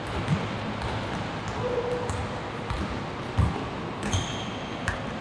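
A basketball bouncing on a court floor, a handful of irregular thuds over a steady gym hubbub. A few short high squeaks come in between, the clearest about four seconds in.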